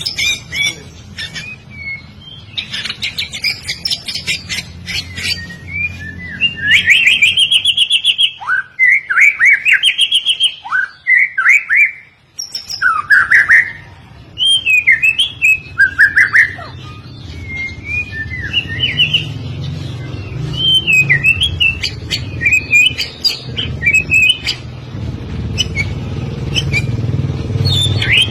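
White-rumped shama (murai batu) singing: loud, clear whistled phrases that slide up and down in pitch, loudest in the middle, then softer, quicker chattering phrases. A low rumble builds underneath in the second half.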